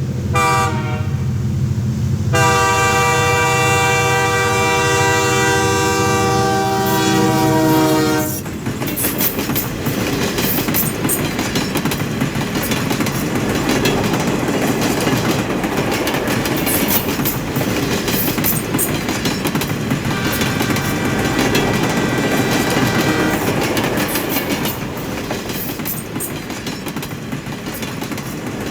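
Train horn blowing one long blast for about eight seconds, dropping slightly in pitch as it ends. Then the train runs past with a rumble and wheels clicking over the rail joints, and the horn sounds again more faintly about twenty seconds in, for some three seconds.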